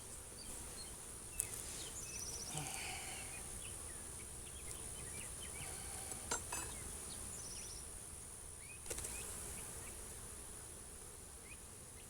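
Honeybees buzzing around an opened hive, with a steady high-pitched whine throughout and short chirps in the background. Three sharp clicks fall about a second and a half, six seconds and nine seconds in.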